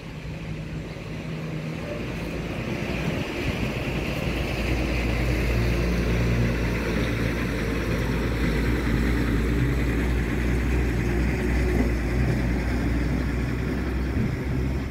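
An engine running steadily out of sight, growing louder over the first few seconds and then holding at a steady level.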